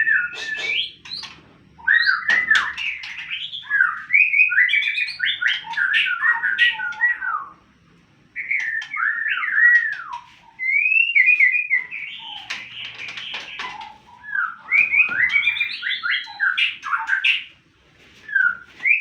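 Songbird singing in long phrases of rapid, varied chirps and slurred whistles, with short pauses between phrases.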